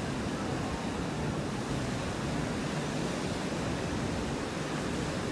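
Steady rushing noise of wind on the microphone mixed with street traffic, with no distinct events standing out.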